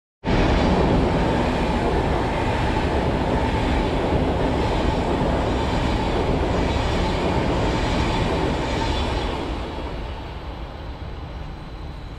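A Swiss SBB double-deck passenger train passing at speed alongside a station platform, a steady loud rush of wheels and air that fades away about ten seconds in as the last cars go by.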